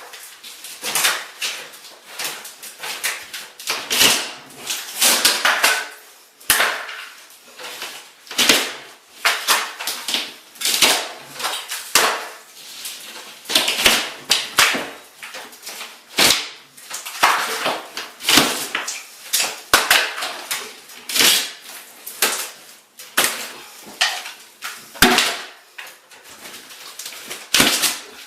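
A plaster or drywall ceiling being torn down: repeated sharp cracking and crashing as pieces are broken and pulled loose and fall, about one or two impacts a second.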